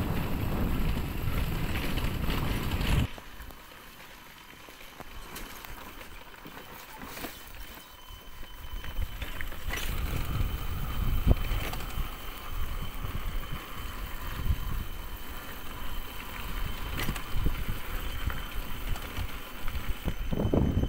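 Motorcycle riding over a rough dirt track, with wind buffeting the microphone over the engine. The noise drops suddenly about three seconds in to a quieter rumble, which then builds up again with a few knocks.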